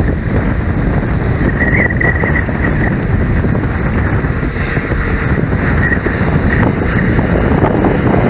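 Strong wind buffeting the microphone over the distant running of an Airbus A321neo's CFM LEAP-1A turbofans as the jet rolls slowly along the runway. A faint high tone comes and goes twice.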